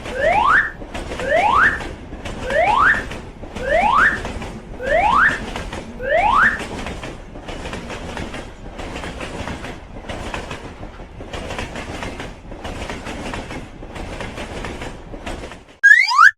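Cartoon train sound effect: a train running with a steady clickety-clack over the rail joints. Over it, a rising whistle-like sweep repeats about once a second for the first six seconds and comes once more near the end, and then the sound cuts off.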